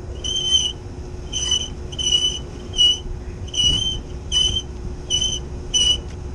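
Dry, stiff fan shaft of a small belt-driven Marley cooling tower squealing as the blade and pulley are turned by hand: eight short high squeaks, about one every three-quarters of a second. The squeal is the sign of a bearing short of oil, which the technician sets out to oil next because its oil feed is leaking.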